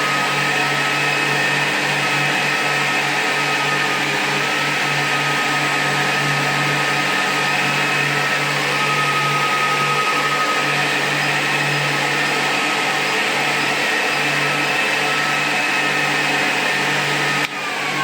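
Electric motor driven by a repaired Siemens Micro control board, running at steady speed with a high whine over a low hum. Near the end the level drops and the whine starts to fall in pitch as the motor begins to slow down.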